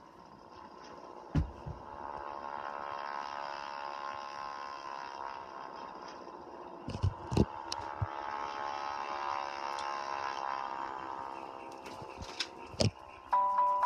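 A distorted, buzzing drone with many overtones, slowly wavering in pitch, from a TV speaker playing a damaged VHS tape with tracking errors. It fades in over the first couple of seconds, with a few sharp clicks, about four in all. Chiming glockenspiel music starts right at the end.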